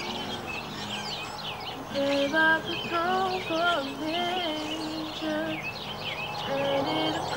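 A young woman singing with an acoustic guitar, her voice coming in about two seconds in, over constant chirping of many birds.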